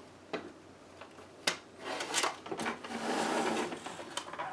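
Hard plastic parts of a toy dashboard being handled and pried apart: a few sharp clicks, then a longer scraping rustle about three seconds in.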